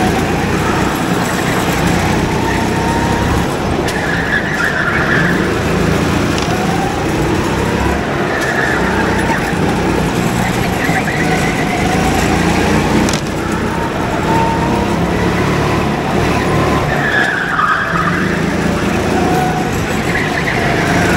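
Go-kart engine running hard, its pitch rising and falling as it speeds up and slows, with tyres squealing briefly in the corners every few seconds.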